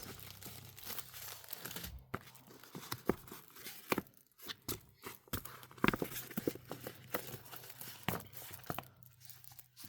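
Diamond painting kit packaging being handled: irregular crinkling and rustling with scattered sharp crackles.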